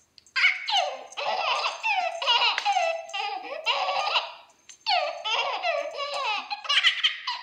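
Baby laughing hard in runs of high-pitched squealing giggles, with a short break about four and a half seconds in.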